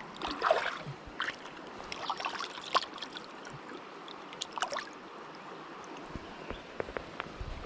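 River water splashing and trickling in a series of irregular splashes as a small smallmouth bass is let back into the current, over the steady rush of the flowing river.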